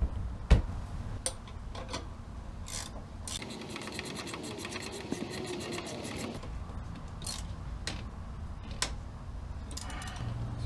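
Rubbing and clicking of hands working the air fitting onto the tire valve, with about three seconds of rapid clicking in the middle. A steady low electric hum starts just before the end as the air compressor starts to pump up the flat tire.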